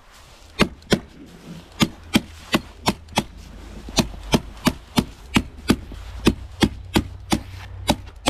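Hammer tacker (hammer stapler) striking and driving staples in a steady run, about three sharp strikes a second, fastening loose Typar house wrap along the bottom of the wall.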